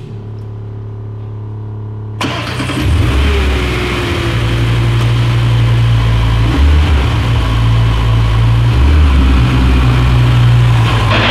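Audi RS3 8Y's 2.5-litre five-cylinder engine, fitted with a Provocateur valved exhaust, starting about two seconds in with a sudden loud flare, then running loudly with the revs rising and falling. A steady low hum comes before the start.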